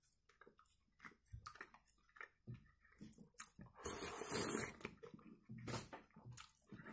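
A spoonful of kharcho soup with rice slurped off a spoon about four seconds in, a noisy sip lasting about a second, with soft chewing and mouth clicks before and after.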